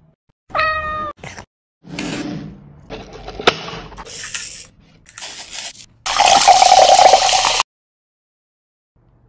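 A cat meows once, briefly, about half a second in. Then comes a few seconds of noisy handling with clicks, and near the end a loud rushing noise lasting about a second and a half, the loudest sound here, which stops suddenly.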